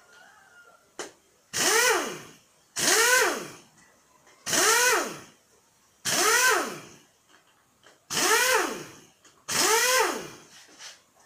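Air impact wrench run in six short bursts, each about a second long, its pitch rising and then falling as it spins up and winds down, undoing the bolts of a motorcycle engine's casing.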